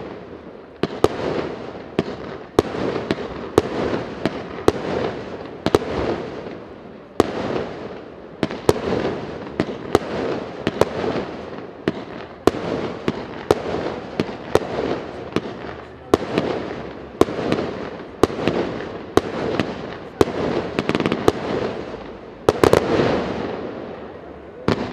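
Fireworks display: aerial shells going off in a steady string of sharp bangs, about two a second, each followed by a fading echo.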